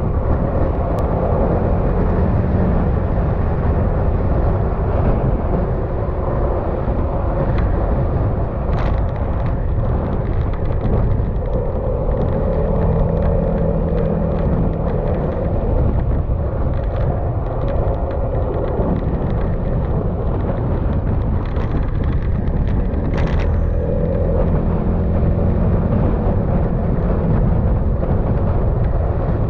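Yamaha XMAX scooter's single-cylinder engine running while riding at road speed, its note rising and falling a little with the throttle.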